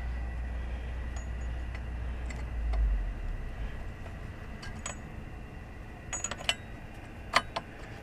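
Light metallic clinks and taps of parts being fitted onto an outboard's propeller shaft and prop hub, in a few scattered clusters with the sharpest clink near the end. A low rumble underneath stops about three seconds in.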